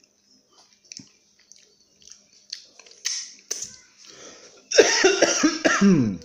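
Soft eating noises (lip smacks and chewing clicks) from a man eating chicken feet in spicy rica sauce. About five seconds in comes a loud wordless vocal reaction that wavers and then falls in pitch, a reaction to the chilli heat.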